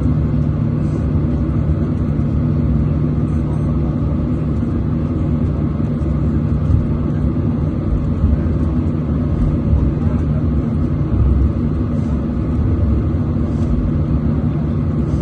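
Steady low rumble inside an airliner's cabin as it taxis, its jet engines running at low power.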